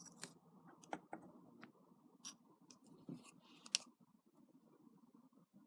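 Faint scattered clicks and light taps of small wooden fingerboard decks being handled, mostly in the first four seconds.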